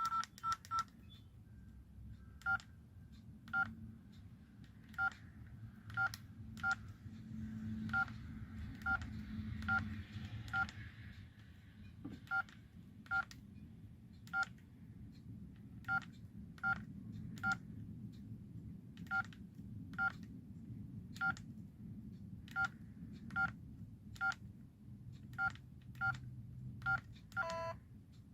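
LG V111 mobile phone keypad tones: short two-tone dial beeps, the same tone repeated at irregular intervals about once a second as keys are pressed. Near the end comes a brief run of tones that falls in pitch.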